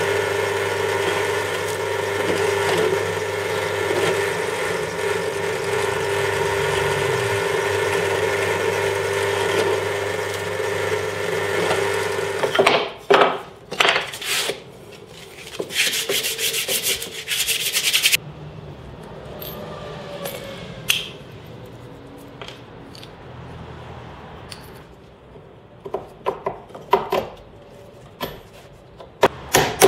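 Bench drill press motor running steadily with a hum while a twist bit bores into a pine strip, the bit rubbing through the wood. It stops about twelve seconds in, followed by scattered knocks, clicks and rubbing as wooden pieces are handled on a workbench.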